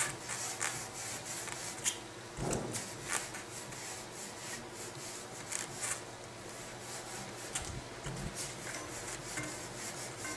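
An alcohol-soaked cloth rubbing and scrubbing across the faces of a bicycle disc brake rotor as the hand works around it. It makes an irregular scuffing sound with small scrapes and taps, cleaning oil contamination off the rotor, which causes brake squeal.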